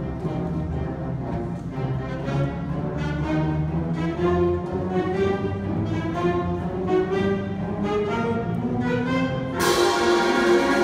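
A middle school concert band of woodwinds, brass and percussion playing a slow piece in held, changing chords. Near the end the whole band comes in louder on a crash.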